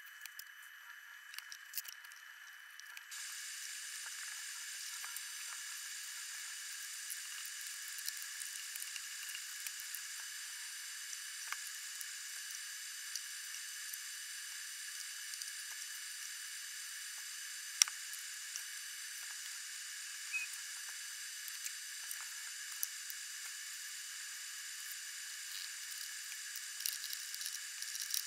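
A steady high hiss, with faint scattered clicks and one sharper click about 18 seconds in.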